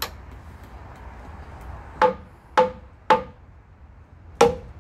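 Hammer tapping a metal pin home on a fairground ride's tram mounting, five short ringing metal blows: one at the start, three about half a second apart around two seconds in, and one more near the end.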